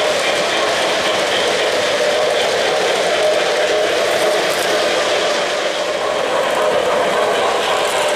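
O-gauge model trains running on three-rail track: a steady, even running noise of wheels and motors.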